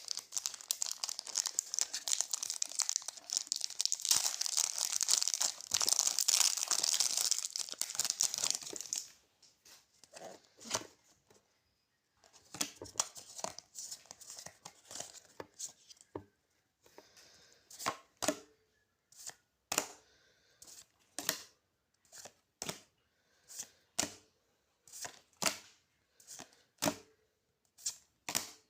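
A Pokémon card booster pack's foil wrapper torn and crinkled open for about nine seconds, then the cards handled one at a time, each flick or slide a short sharp snap, roughly one a second.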